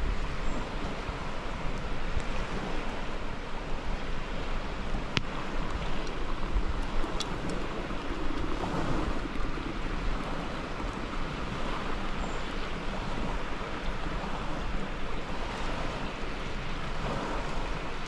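Steady rushing of a swollen, flooded river, with two brief sharp clicks about five and seven seconds in.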